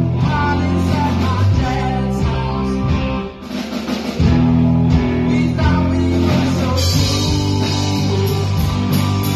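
Live rock band playing: electric guitars over a drum kit. The sound dips briefly about three seconds in, then the full band comes back in.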